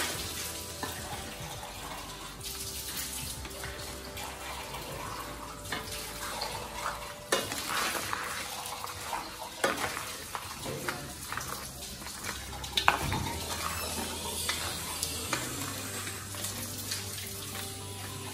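Shell-on crab pieces and prawns being stirred by hand in a sizzling metal wok, the shells clattering and scraping against the pan, with a few sharper knocks about 7, 10 and 13 seconds in.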